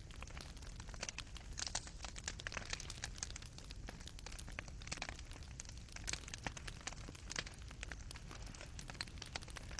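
Burning coals in a fireplace crackling, with irregular sharp pops and snaps over a low, steady rumble of the fire.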